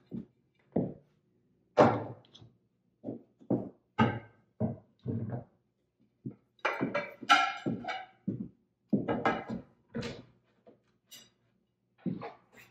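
Dinner plates being set down one by one onto wooden chargers on a table: a string of irregular clunks and clinks, some ringing briefly.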